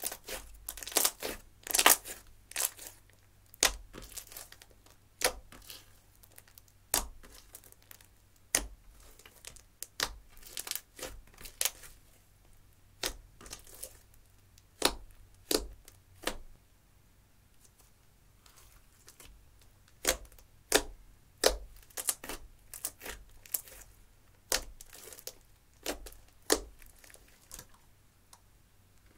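Hands squeezing, folding and stretching thick slime made from clear slime mixed with eyeshadow, giving irregular sharp pops and crackles as air pockets are pressed out, some in quick clusters. There is a quiet pause of a couple of seconds a little past the middle.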